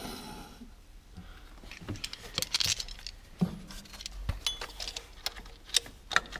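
Scattered small metallic clicks and clinks, with a sharper pair of clicks near the end, as a gloved hand works at the timing-belt tensioner pulley of a 1.6 HDi diesel engine during its removal.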